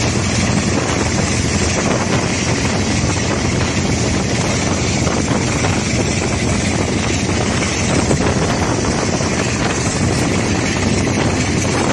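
Wind rushing over the microphone beside a moving Class 45 diesel-electric locomotive, with the locomotive running underneath it as a steady loud noise.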